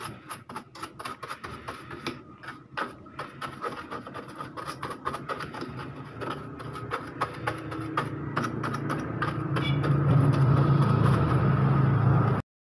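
Paintbrush bristles scrubbing dust off a laptop's internals, a quick run of short scratchy strokes. In the second half a low motor-like hum builds up and becomes the loudest sound, then everything cuts off suddenly just before the end.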